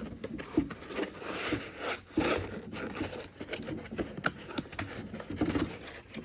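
Scraping, rubbing and knocking as a cordless drill is worked and pulled free of tight-fitting packaging, in irregular bursts with a few sharp knocks.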